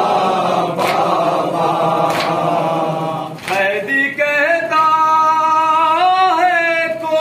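Men chanting a noha refrain together in Urdu, with sharp chest-beating slaps of matam in time with it, about one every second and a half. Midway the chorus stops and a solo male reciter sings a long, wavering line of the elegy.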